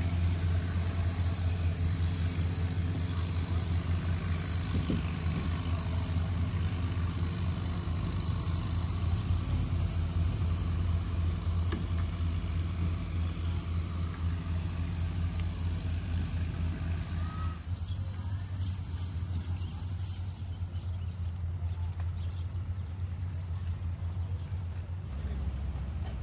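A longtail boat's engine running steadily at a low pitch, with a steady high insect buzz over it. Near the end the engine note drops lower.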